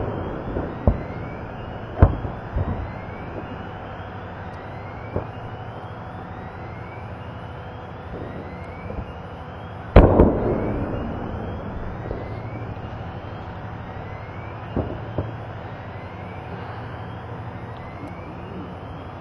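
Munitions in a hit ammunition dump cooking off: separate explosions and pops at irregular intervals, the loudest about ten seconds in with a long rumbling echo.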